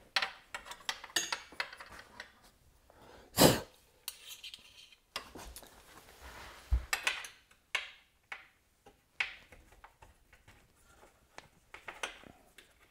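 Allen key undoing the corner screws of a Festool MFT/3 table top from underneath: scattered small metal clinks and clicks, with one louder knock about three and a half seconds in.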